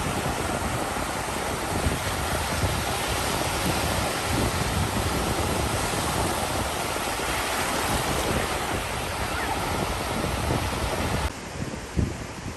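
Ocean surf washing onto a beach, a steady rushing noise, with wind buffeting the microphone. The sound drops off suddenly near the end.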